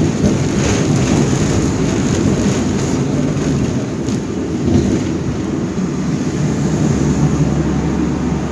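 Hong Kong double-decker tram running along its track, a steady low rumble of wheels and motor, with a deeper hum setting in about seven seconds in.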